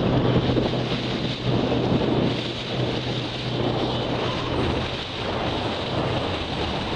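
Wind noise on the microphone and water rushing past the hull of a moving motorboat, over a steady low engine hum.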